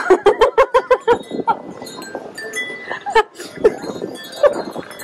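A man laughing heartily: a quick run of 'ha-ha-ha' bursts in the first second or so, then softer chuckles. Music plays in the background.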